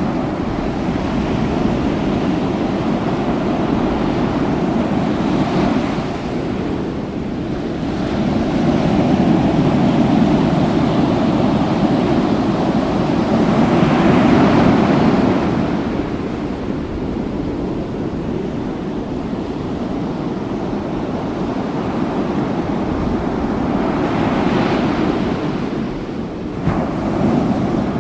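Ocean waves breaking and washing on a shore, a continuous rushing surf that swells louder at intervals as larger waves come in, strongest about halfway through.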